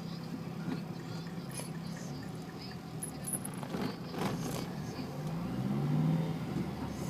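French bulldog snoring: a steady low, rumbling drone with each breath, with a rougher, louder breath about four seconds in. Snoring like this is typical of the breed's short, flat-faced airway.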